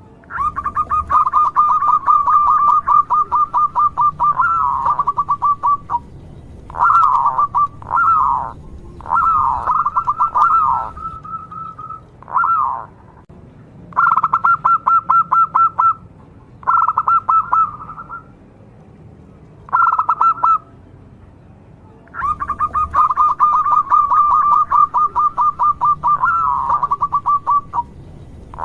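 Local zebra dove (perkutut) singing: rapid runs of staccato coos held around one pitch. A long run opens, several short phrases follow with gaps between, and another long run comes near the end.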